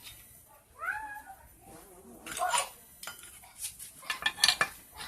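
A cat meows once, about a second in. Then come several sharp metallic clinks and clicks of engine parts and tools being handled, the loudest of them near the end.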